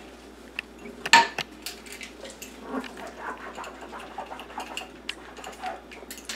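Dishes being washed by hand at a sink: a mug and other crockery clinking and knocking, with one louder clatter about a second in.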